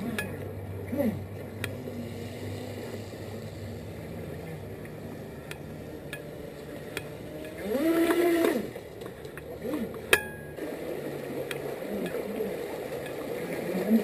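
Pro Boat River Jet radio-controlled jet boat's electric motor whining as it is throttled up, held for about a second and let off, about eight seconds in, over the steady rush of a shallow creek. Shorter rises and falls of the motor's pitch come and go, and a sharp clink comes about ten seconds in.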